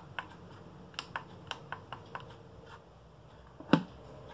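A run of light, irregular clicks and taps from small objects being handled on a craft work table, followed by one louder knock near the end as something is set down.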